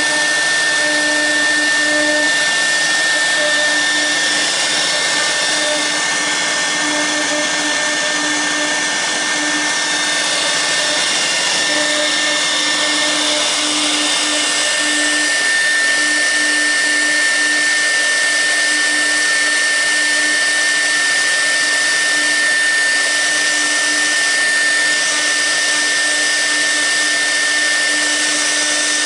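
The 6 kW air-cooled spindle of a CNC router running steadily with a constant high whine, a V-bit cutting into the workpiece. A lower hum comes and goes irregularly as the machine moves.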